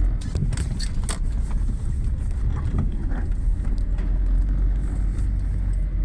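Engine of heavy machinery, likely the backhoe, running steadily with a low rumble, with a few sharp metallic clicks or knocks in the first second or so.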